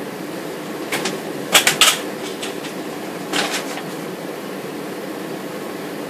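Whiteboard marker writing on a whiteboard: a few short scratchy strokes and taps, a quick run of them about a second and a half in and another pair near three and a half seconds, over a steady background hum.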